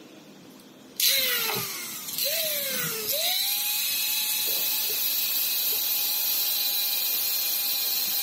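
Angle grinder switched on about a second in, its motor pulsed and spinning up and down in short surges, then held running at a steady high whine from about three seconds in as it grinds metal, throwing sparks.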